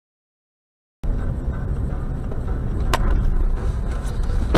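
Dashcam recording of a car's engine and road rumble heard from inside the vehicle, cutting in abruptly after about a second of silence. A single sharp click comes about three seconds in.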